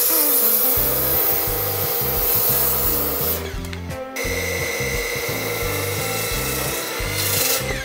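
Large handheld circular saw running through a thick cedar slab, with a steady motor whine. The cut stops about three and a half seconds in, and a second cut starts soon after and runs until near the end.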